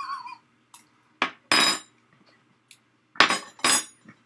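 Metal teaspoons clinking and clattering: a few sharp, ringing knocks, in two pairs.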